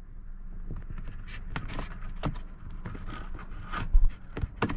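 Scattered clicks, scrapes and rustles of a power cable being tucked behind plastic interior car trim, with a sharper knock about four seconds in.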